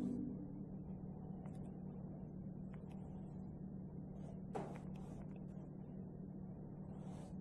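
Faint scratches and taps of a paintbrush on canvas over a low steady hum, as the last of the music dies away at the start; one slightly louder scrape comes about halfway through.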